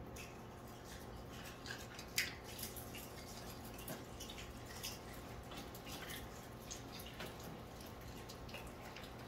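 Scattered small clicks and taps, one sharper about two seconds in, as communion cups are handled during the silent taking of the cup, over a faint low steady hum.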